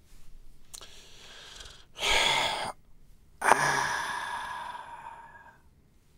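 A man's sharp breath in, then a long sigh out that slowly fades.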